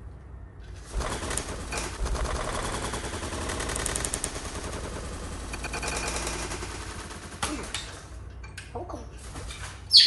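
Blue-fronted amazon parrot beating its wings hard, a dense flutter of wingbeats drawn out over about seven seconds in a slow-motion replay. It ends with a short, sharp, loud sound.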